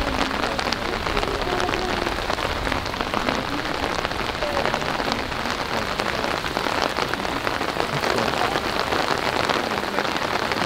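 Steady patter of rain falling on a surface close to the microphone, with many small drop ticks and faint distant voices.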